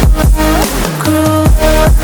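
Electronic dance background music with a heavy beat and bass.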